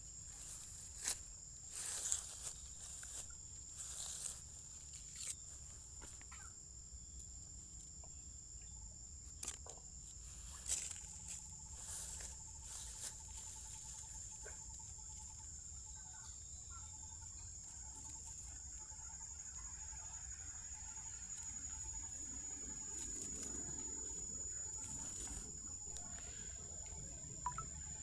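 Steady high-pitched insect drone, with scattered short clicks and rustles in the first half and a fainter pulsing note joining it for several seconds around the middle.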